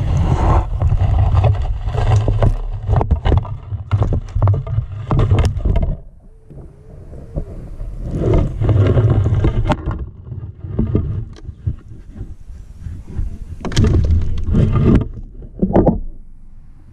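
Irregular knocks, thumps and rumbling in a small fishing boat as a trotline is pulled and fish are handled, loudest in the first few seconds and again near the end.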